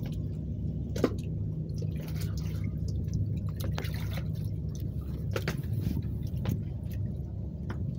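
Small waves lapping and dripping against a moored boat and the harbour edge: scattered small splashes and drips over a steady low hum, with one sharper drip about a second in.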